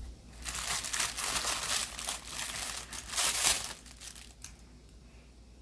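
Packaging being crinkled and rustled while a fidget toy is unwrapped, in two noisy stretches with a short pause between them, fading out about four seconds in.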